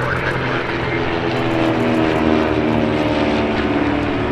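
Piston engines and propellers of light propeller airplanes in flight, a steady drone.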